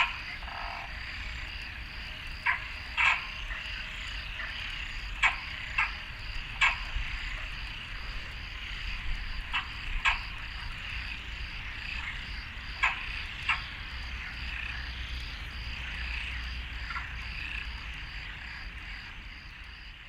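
Frogs calling at a pond: a steady, dense high chorus, with short sharp croaks every second or two standing out above it.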